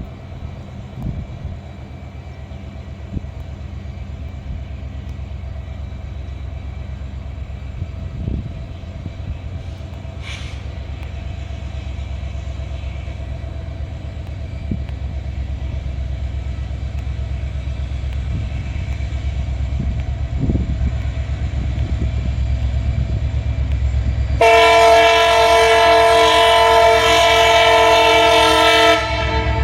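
Indian Railways diesel locomotive engine humming low and steadily, growing slowly louder as it departs, then a loud horn of several tones sounding for about four and a half seconds near the end.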